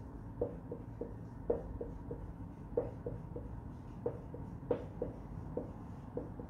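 Marker pen writing on a whiteboard: a string of short, irregular taps of the tip against the board, a few each second, as figures and letters are written.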